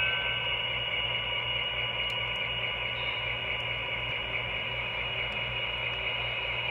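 Steady mechanical whirring and hiss of a running model railroad layout, with a faint quick, regular pulsing underneath.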